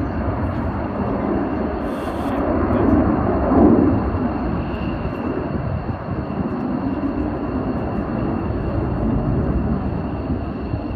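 Jet engine noise from a JAS 39 Gripen fighter's single Volvo RM12 turbofan flying display manoeuvres: a steady, deep rumble that swells briefly about three and a half seconds in.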